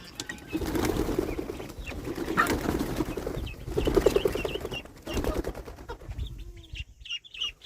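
Young chickens clucking in low bursts, mixed with scuffling knocks. From about six seconds in, chicks peep high and fast, over and over.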